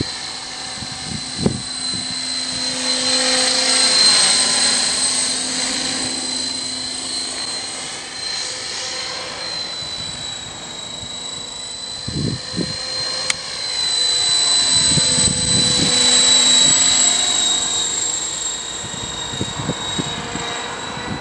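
KDS Innova 550 RC helicopter with KBDD main blades in flight: a steady high-pitched whine from the drivetrain over the whoosh of the rotor, swelling louder twice as it passes closer. A few low thumps come through, near the start and around two-thirds of the way in.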